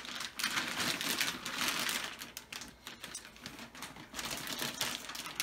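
Clear plastic bag crinkling and rustling as a boxed rack-mount unit is handled inside it. The crackle is busiest for the first two seconds or so, then thins to scattered clicks and rustles.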